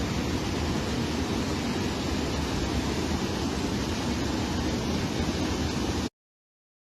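Steady rush of fast-flowing floodwater, cutting off suddenly about six seconds in.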